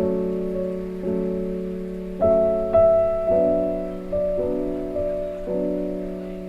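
Slow background music: sustained chords, a new one struck about once a second and left to fade.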